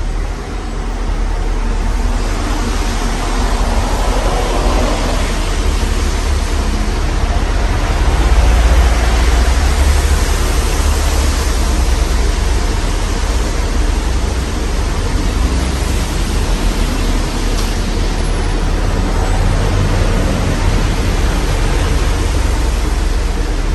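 Modern Fan Company Cirrus ceiling fan running, its downdraft buffeting the microphone as a steady rushing noise with a low rumble that swells a little midway.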